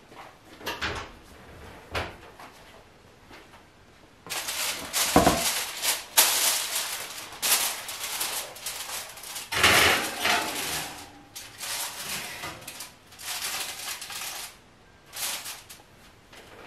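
An oven door opens with a thud, then the metal oven rack and a foil-covered baking dish scrape and clatter as the dish is slid into the oven, followed by softer handling sounds.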